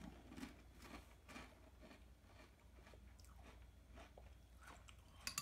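Faint chewing of a mouthful of crunchy caramel corn puffs (Beaver Nuggets) eaten in milk like cereal, a stream of small crunches. Near the end a spoon clicks against the bowl.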